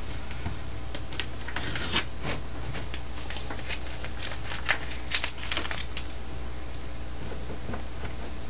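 Blue painter's tape being peeled up and crumpled by hand: scattered short crackles and rustles, clustered about two seconds in and again between about four and a half and six seconds.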